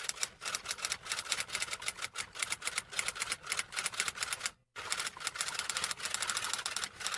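Rapid, uneven keystrokes of fast typing, clicking several times a second, with a brief pause a little before five seconds in.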